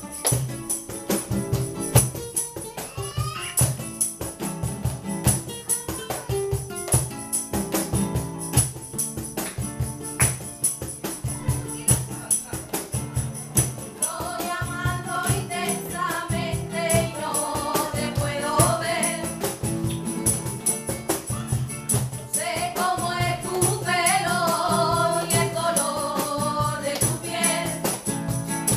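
Live flamenco music: strummed guitar with quick, steady percussion. Singing comes in about halfway, breaks off briefly, and returns near the end.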